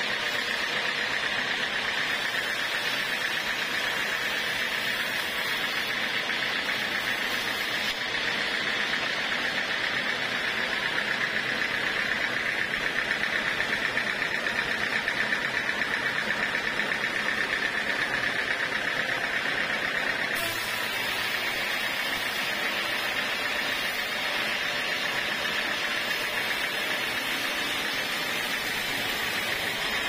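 Band sawmill running with its band blade cutting lengthwise through a large log: a steady, unbroken hissing whine of blade and machine.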